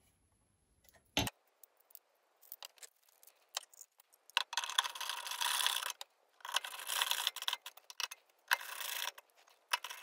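A hand driver tightening the mounting nuts on a microwave oven's magnetron: a few light clicks, then, from about four seconds in, four spells of scratchy metallic clicking and scraping about a second long each, with short pauses between.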